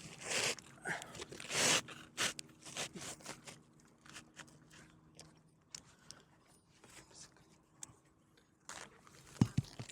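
Asphalt roofing shingle being slid into place under the course above, scraping and crinkling in short bursts over the first few seconds, then scattered light clicks, with a few sharp knocks near the end.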